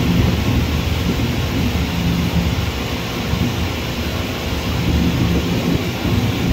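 Low, steady rumble of a twin-engine jet airliner's engines on the runway, heard from a distance.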